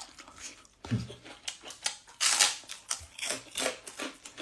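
A person eating rice and fish, mouth sounds close to the microphone: quick clicky chewing and lip smacks, with a short hum about a second in and a breathy hiss a little past the middle.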